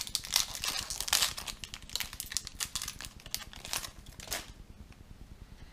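Foil wrapper of a Yu-Gi-Oh! booster pack crinkling and crackling as it is torn open and the cards are pulled out. There is a run of sharp crackles for about four and a half seconds, then it goes quiet.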